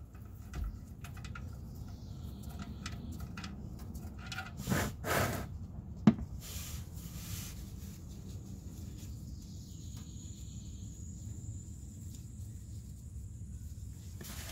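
Engine oil draining from the oil pan's drain hole in a steady stream into a catch pan, a low continuous pouring sound. A single sharp click about six seconds in.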